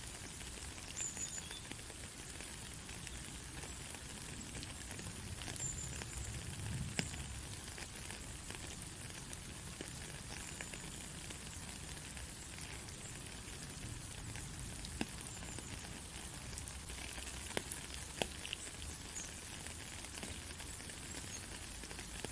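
Steady rain falling on a country road: a continuous high hiss with scattered sharp drop ticks, a few of them louder.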